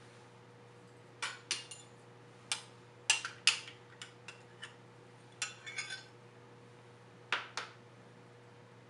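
Metal spoon clinking and scraping against a yogurt tub and a glass mixing bowl while yogurt is scooped out: about a dozen short, sharp taps at irregular intervals, with a faint steady hum underneath.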